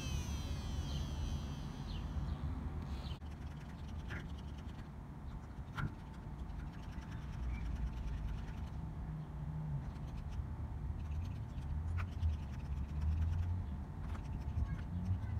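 Small homemade electric screwdriver, a 12 V DC motor driving a drill chuck with a Phillips bit, running and working small screws in a wooden board, with a few sharp clicks. A fluctuating low rumble is the loudest sound.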